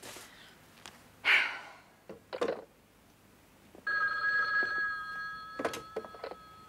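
Desk telephone ringing: a steady two-tone ring that starts about four seconds in and keeps going. Before it come two short, loud noises, about a second apart.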